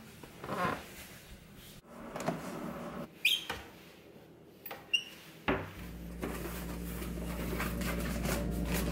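A kitchen cupboard being opened and a ceramic mug taken off a shelf of glasses, with two sharp ringing clinks, a little past three seconds and about five seconds in. After that a low steady drone fades in and grows louder.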